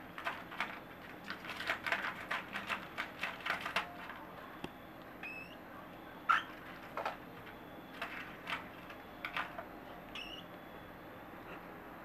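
Cockatiel chicks: a quick run of short scratchy sounds over the first four seconds, then scattered ones. Two brief high chirps come about five and ten seconds in.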